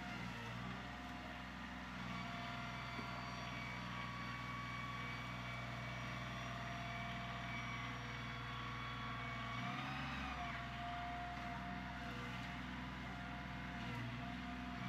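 Kioti CK25 compact tractor's diesel engine running steadily while the backhoe is worked, its note briefly shifting about ten seconds in.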